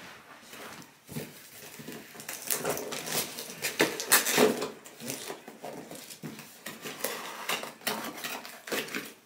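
A present being unwrapped and handled: crackly rustling of packaging with light clattering knocks of hard objects, busiest and loudest in the middle.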